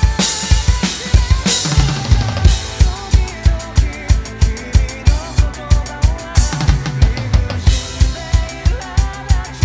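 Roland V-Drums electronic drum kit played in a rock groove: a steady kick drum on the beat, with snare hits and crash cymbals near the start, about a second and a half in, and again about six seconds in. It plays along with the band's recording of the song, which has singing.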